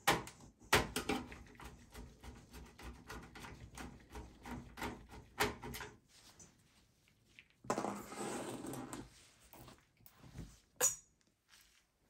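Screwdriver backing out motherboard mounting screws in a steel PC case: a quick run of small clicks and scrapes, then a rustling scrape about two-thirds of the way through and a single sharp metallic tick near the end.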